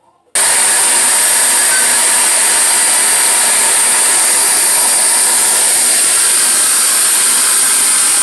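Wet/dry vac switching on suddenly about a third of a second in and running loudly and steadily with a high-pitched whine, sucking the water out of a toilet bowl and tank.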